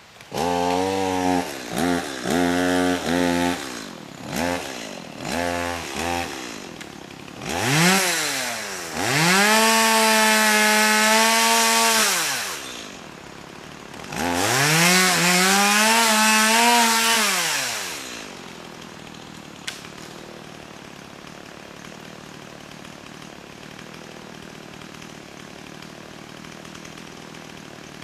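Two-stroke chainsaw revving in several short blips, then held at full throttle twice for about four seconds each while cutting through a fallen alder log, its pitch rising into each cut and falling off after it. It then drops back to a quieter steady idle.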